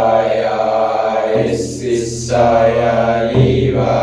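Chanted vocal tones, each held long and steady over a low drone, with a brief pause for breath about a second and a half in.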